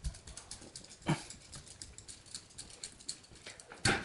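Small clicks and scrapes of copper wires being twisted and pulled out of the backstab holes of a household electrical outlet, with two louder knocks, about a second in and near the end.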